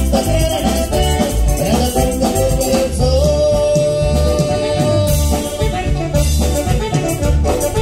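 Upbeat Latin music with a steady bass beat and singing, with one long held note about three seconds in.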